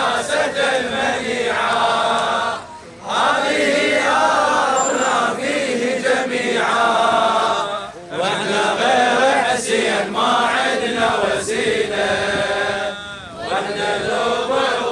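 Male voice chanting an Arabic Shia mourning lament (latmiya), in long sung phrases broken by short pauses about every five seconds.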